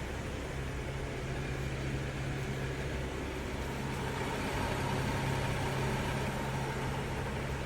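BMW 535i xDrive's turbocharged straight-six running steadily, with a constant low hum and a fainter steady whine that swells a little about halfway through. The whine may be the weird sound the owner is trying to pin down.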